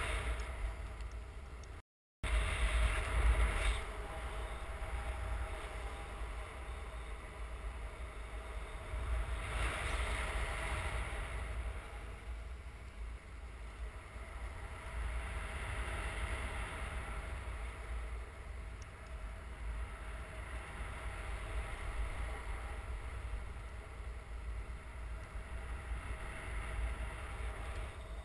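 Wind noise from airflow over the microphone of a camera on a paraglider in flight: a steady low rush that swells and eases, with a brief total dropout about two seconds in.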